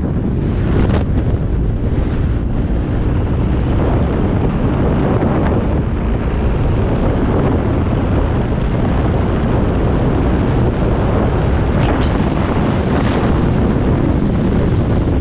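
Wind buffeting the microphone of a moving rider's camera, a loud steady rumble with the noise of the ride underneath.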